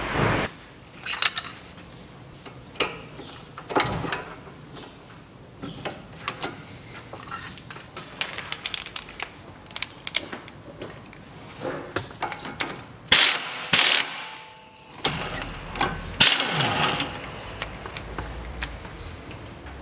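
Ratchet wrench with an 18 mm socket loosening the nut of a front stabilizer link: irregular ratchet clicks, with a few louder sharp metallic knocks about two-thirds of the way in.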